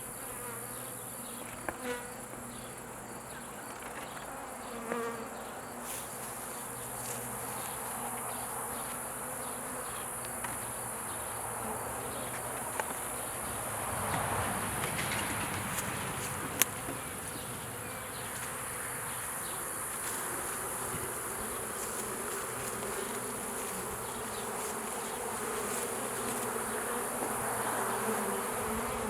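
A swarm of honeybees buzzing in flight around a hive box while they are being hived: a steady, many-winged hum, with a few faint clicks.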